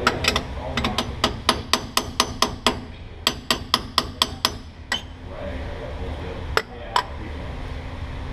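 Hammer tapping a fork seal driver to drive a new pinion seal into the rear differential. Quick, sharp taps come about four a second for four to five seconds, then a pause, then two last taps near the end.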